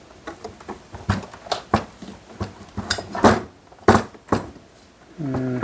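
Scattered clicks and light knocks of hands handling servos and parts on a metal robot arm frame, with a few sharper knocks about three and four seconds in.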